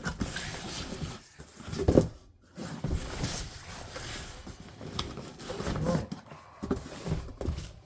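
Cardboard packaging being handled and opened: irregular rustling and scraping with a few dull knocks and a sharp click about five seconds in.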